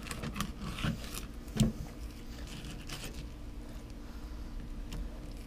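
Fillet knife cutting along a flounder's ribs and backbone on a plastic cutting board: faint slicing and scraping, with a brief knock about one and a half seconds in.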